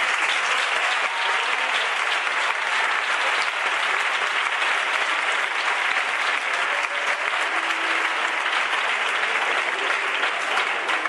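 Congregation applauding: many people clapping at once, a dense, steady clatter of hand claps that starts suddenly and holds at one level.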